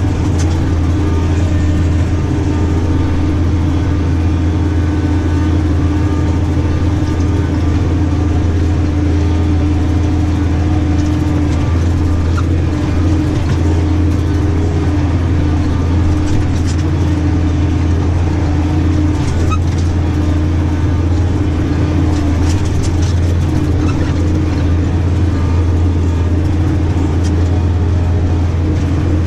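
New Holland tractor's diesel engine running steadily under load, heard from inside the cab as a constant low drone. A few faint clicks and knocks come through as it crosses rough ground.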